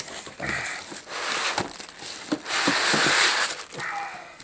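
Cardboard and plastic packaging of a laptop box being handled: the inner cardboard tray is lifted out, with a few knocks and a longer rustle and crinkle of paper and plastic wrap about two and a half seconds in.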